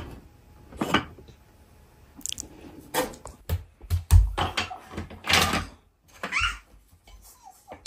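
Wooden toy train track pieces knocking and clattering as they are handled and set down on a hardwood floor, in a run of irregular knocks and short rattles.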